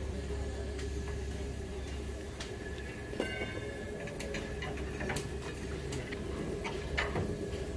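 Workshop background noise: a steady low machine hum with a faint steady whine over it, and scattered light clicks and knocks of metal being handled.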